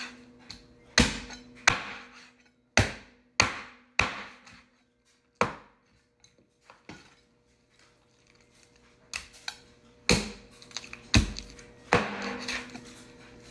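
Meat cleaver chopping raw turkey into pieces on a wooden cutting board: a dozen or so sharp, heavy whacks in two runs, with a pause of a few seconds in the middle.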